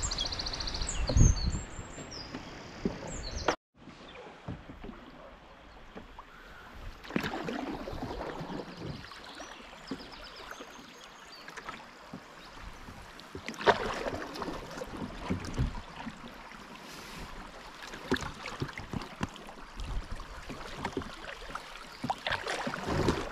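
Open canoes on a river: paddles dipping and water splashing at irregular intervals over a steady hiss of moving water, with birds singing during the first few seconds. The sound cuts out for a moment about three and a half seconds in.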